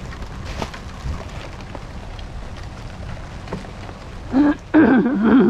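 Steady rain falling, with scattered small taps and knocks. Near the end a person's voice sounds briefly, without clear words.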